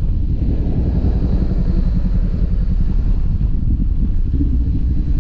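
Sport motorcycle running steadily at moderate road speed, its engine drone mixed with a low, even rumble of wind and road noise.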